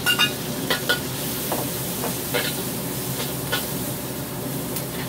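Oil sizzling in a wok as dried shrimp, garlic, chili and julienned carrot stir-fry. A metal spatula gives several sharp clinks and scrapes in the first second, scraping the carrot out of a ceramic bowl into the wok. A few more stirring scrapes follow against the sizzle.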